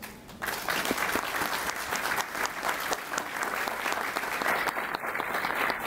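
Audience applauding, the clapping breaking out about half a second in and continuing as a dense, steady patter of many hands.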